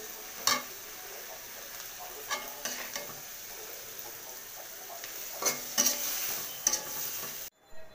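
Prawns, onions and green chillies sizzling in hot oil in a pan while being stir-fried, with a steady hiss and several scraping, clattering strokes of the stirring utensil against the pan. The sizzle cuts off suddenly near the end.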